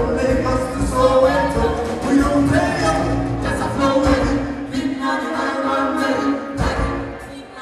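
Live concert music with several voices singing together over the band; the bass drops away about two-thirds of the way through, leaving mostly the voices.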